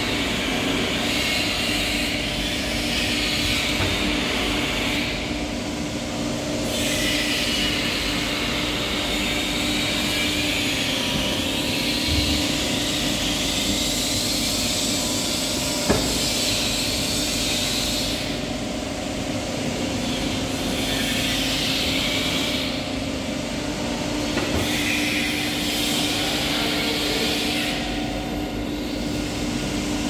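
Hydraulic power pack of a semi-automatic pet-pack straw baler running steadily: the electric motor and pump give a constant hum, with a higher hiss that swells and fades every few seconds as the machine works. A single sharp click about halfway through.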